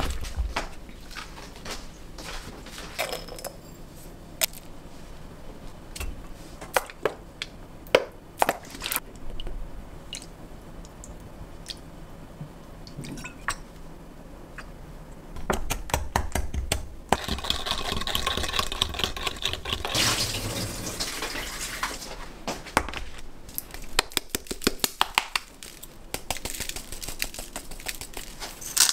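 Kitchen food-prep sounds: scattered clinks and taps of a spoon against glass and ceramic bowls, and liquid seasonings being poured and stirred. A denser, longer stretch of this noise comes a little past the middle.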